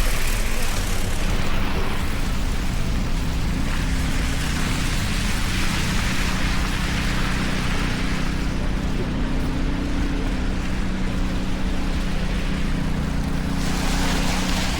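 City traffic on wet, slushy streets: a steady low engine hum with the hiss of tyres on wet pavement, swelling and fading as vehicles pass and rising again near the end.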